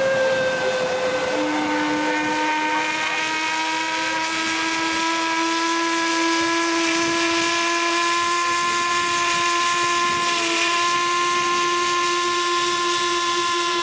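Paddle steamers' steam whistles blowing long, held tones, several pitches sounding together over a steady hiss of steam; a lower note comes in about a second in while a higher one fades a few seconds later.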